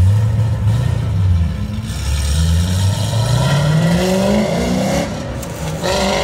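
A car engine revving as the car accelerates away, its pitch climbing steadily for about three seconds before it lets off about five seconds in.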